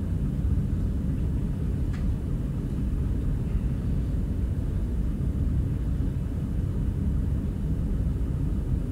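Steady low room rumble, with a faint click about two seconds in.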